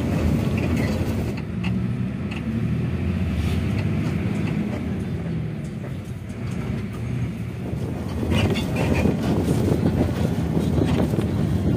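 Inside a moving passenger bus: steady engine drone and road rumble at speed, with scattered rattles. It gets louder from about eight seconds in.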